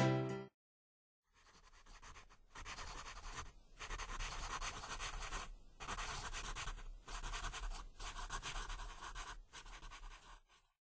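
Chalk scratching on a blackboard in a run of about seven writing strokes, each lasting from half a second to two seconds, with short pauses between.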